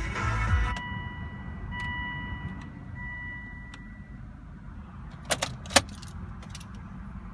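Inside a car that won't start: a loud rumbling noise stops in the first second, and a steady high electronic warning tone sounds on and off until about four seconds in. Then come a few sharp clicks and a jingle of keys about five and a half seconds in.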